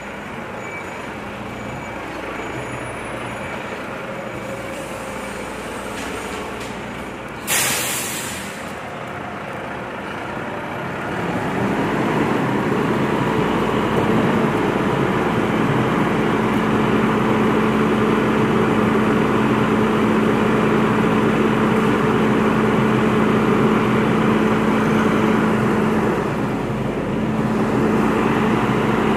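Volvo FM 370 refuse truck's diesel engine running, with one short, loud air-brake hiss about seven and a half seconds in. From about twelve seconds in the engine runs louder and steady, with a constant hum.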